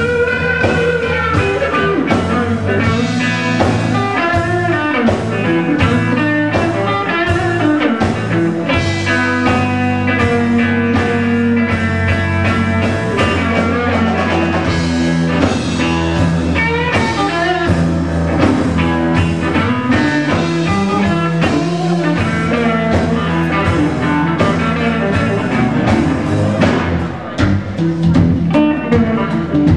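Live blues band playing at full volume: guitar lines over sustained bass notes and a steady drum beat.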